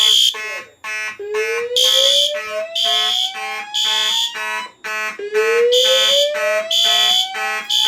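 Fire alarm system in alarm after a pull station activation: Simplex and System Sensor horns sounding together. Several buzzy horns pulse over one another, a shrill tone sounds in groups of three with a pause between groups, and a tone rises slowly in pitch twice.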